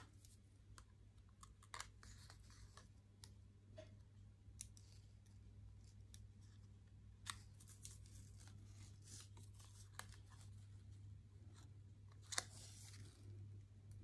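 Near silence over a steady low hum, broken by faint scattered clicks and light paper handling as the white backing film is peeled off foam adhesive dots on the back of a paper circle. A brief rustle comes about twelve seconds in.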